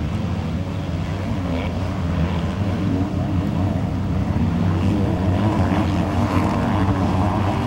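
Motocross bikes' engines revving hard, the pitch rising and falling with the throttle, getting a little louder toward the end.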